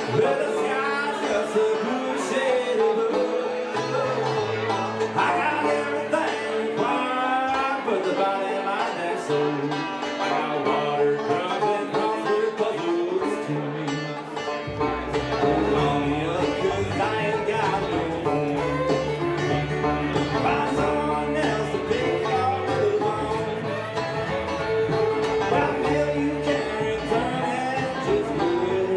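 Bluegrass band music: banjo and guitar with a sung vocal line, and an upright bass part that comes in about halfway through.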